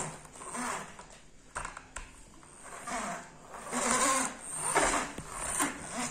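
Plastic toy trucks pushed back and forth over a bed sheet, their wheels and bodies rattling and scraping in a series of uneven bursts.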